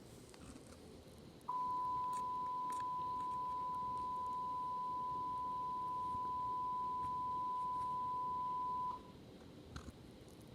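A single steady alert tone of about 1 kHz, held for about seven and a half seconds, then cutting off, as an Emergency Alert System–style broadcast signal. A couple of faint clicks follow near the end.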